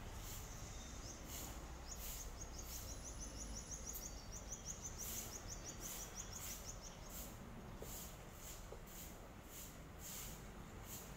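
A bird sings a quick run of short, high chirps, about three to four a second, starting about two seconds in and stopping after about five seconds. Underneath is steady low background noise, with short high hissing pulses recurring every half second or so.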